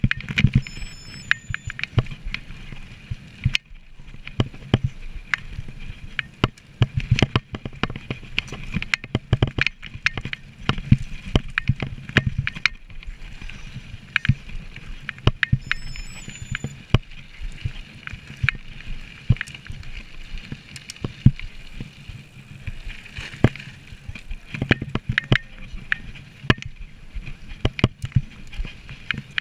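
Mountain bike ridden over rough ground: an irregular, continual clatter of sharp knocks and rattles from the bike and its fittings, several a second, over a low rolling rumble.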